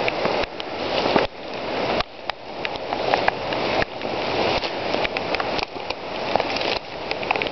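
Heavy rain falling through woods: a steady hiss of rain with many sharp individual drop hits close by.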